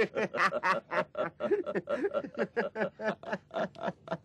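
Two men laughing, a fast run of short chuckling bursts about five a second.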